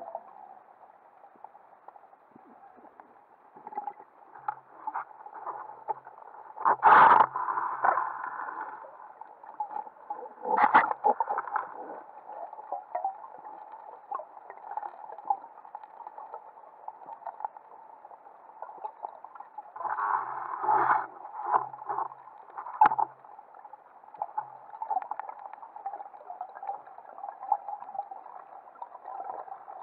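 Underwater sound heard through a diving camera's housing: a steady muffled water noise, broken by several louder bursts of noise about 7 and 11 seconds in and again around 20 to 23 seconds in.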